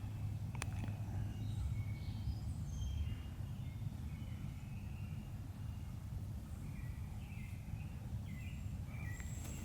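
Small birds chirping and singing in short, scattered calls over a steady low rumble, with one sharp click about half a second in.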